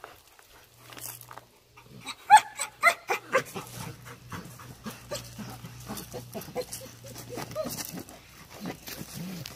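A dog gives a quick run of about five short, high-pitched yelps a couple of seconds in, followed by softer, lower vocal sounds.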